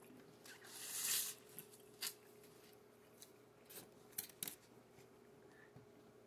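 Quiet tabletop handling sounds: a paper plate and napkin rustling and light clicks as fingers pick at a hot dog bun. There is a soft hissing rustle about a second in, then scattered small ticks.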